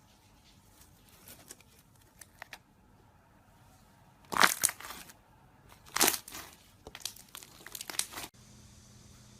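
Crunchy slime pressed and squeezed by hand, giving bursts of crinkling crackles: faint ones at first, two loud ones about halfway through, then a run of smaller ones that cuts off suddenly near the end.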